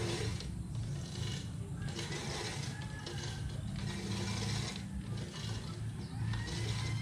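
Manual reel push mower cutting grass: its spinning blades whir and clatter in a run of push strokes, with short breaks between them.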